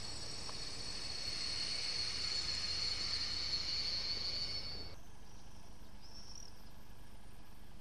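DB class 219 diesel locomotive running in a station, giving off a steady high-pitched whine over a low rumble. The whine swells and then breaks off abruptly about five seconds in. After that comes only faint outdoor background with one short high chirp.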